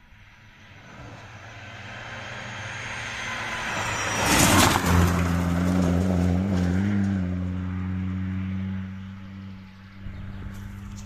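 Rally car at speed approaching on a stage, its engine note building to a loud pass-by about four and a half seconds in with a burst of tyre and wind noise, then pulling away with a steady, lower engine note that fades, swelling briefly again near the end.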